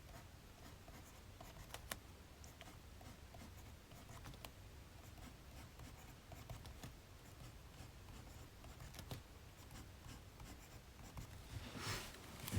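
Pen or pencil scratching on paper, quiet and uneven, with faint taps over a low room hum. About twelve seconds in, a louder rustle.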